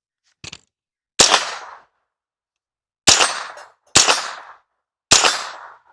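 Four single shots from a Davidson Defense 'FlowerStone' 16-inch AR-15 chambered in .22LR, fired at uneven intervals, each a sharp crack with a short fading echo. A faint click comes about half a second in, before the first shot.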